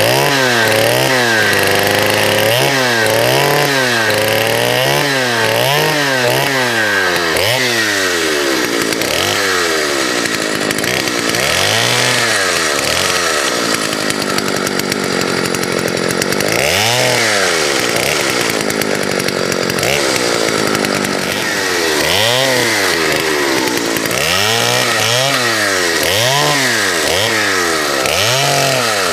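Vintage two-stroke chainsaw running and cutting firewood. The engine pitch rises and falls about once a second as the throttle is worked up and down, with a steadier stretch in the middle.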